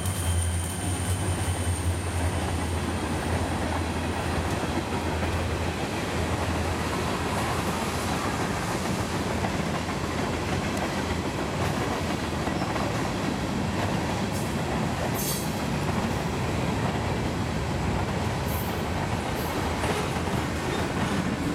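Wheeling & Lake Erie freight train passing: diesel locomotive engines drone for the first several seconds, then the steady rumble and clatter of freight-car wheels on the rails takes over. A thin high wheel squeal is heard at the start.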